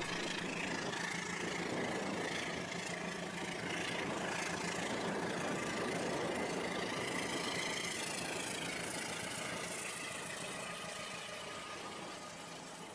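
Battery-powered Rail King toy trains running along plastic track: a steady mechanical running sound of the small motors and wheels, getting quieter near the end.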